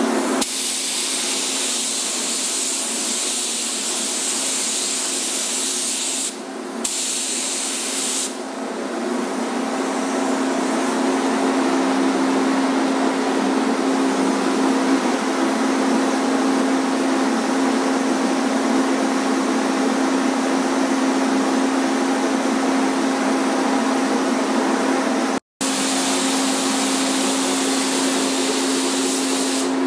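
Gravity-feed paint spray gun hissing as it sprays paint, over a steady hum. The hiss drops briefly twice, a little after six seconds and again around eight seconds in.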